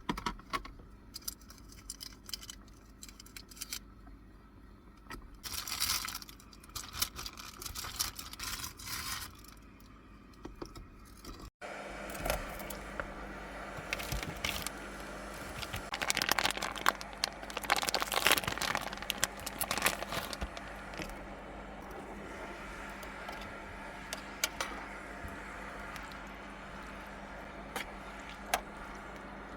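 Objects being handled by hand: irregular clicks, scrapes and some rustling, over a steady low hum in the second half.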